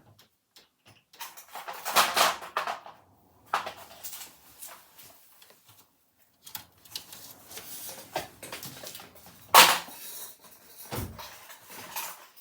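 Irregular rustling and clattering of things being handled, in short bursts with pauses, with one sharp knock about two-thirds of the way through.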